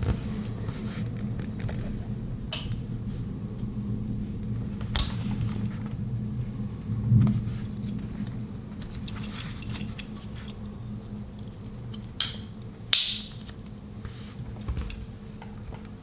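Scattered metal clicks and scrapes from handling a Victorinox Farmer X Alox Swiss Army knife as its spring-loaded tools are pried open, with two sharper snaps near the end, over a steady low hum.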